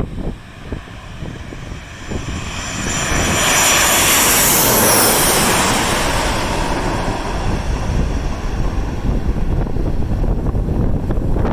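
Airliner on final approach passing low overhead. Its engine noise swells to a peak about four seconds in, with a high whine that drops in pitch as it goes over, then eases off. Strong wind buffets the microphone throughout.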